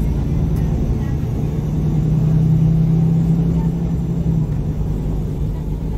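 A 2014 MAN Lion's City G articulated city bus (MAN A23) idling while standing still: a steady low engine rumble with a hum that swells slightly in the middle.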